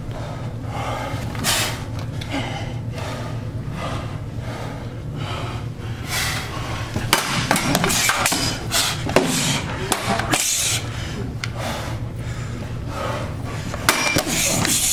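Steel machetes striking shields, including a round metal shield: scattered blows, then a quick flurry of sharp impacts in the middle and two more near the end, over a steady low hum.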